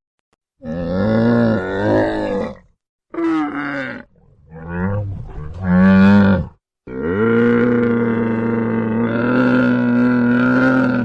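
Camel calling in four low, drawn-out vocalisations separated by short silences. The first wavers in pitch, and the last is held steady for about four seconds.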